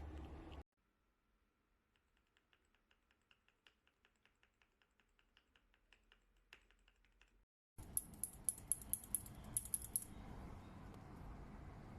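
Gateron mechanical keyboard switches on a switch-tester keychain being pressed over and over: a run of faint quick clicks, about five a second, then louder, sharper clicks over a steady hiss near the end.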